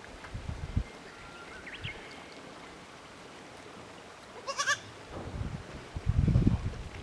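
A young goat kid bleats once, a short wavering call about two-thirds of the way in. Wind rumbles on the microphone in the second half.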